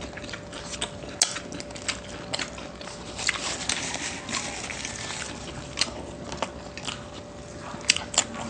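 Close-miked eating sounds: chewing and biting mouthfuls of adobo and rice, with many sharp mouth clicks and smacks.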